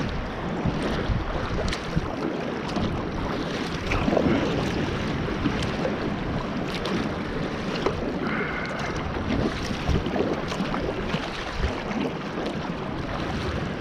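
Water splashing and rushing along the hull of a kayak being paddled through choppy current, with wind buffeting the microphone.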